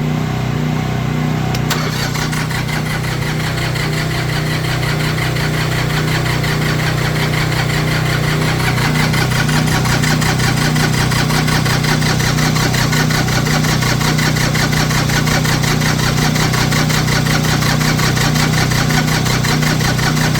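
Diesel tractor engine running cold just after a hard start, its glow plugs faulty, with a steady pulsing beat. About two seconds in the sound turns harsher and brighter, and it grows slightly louder over the next several seconds.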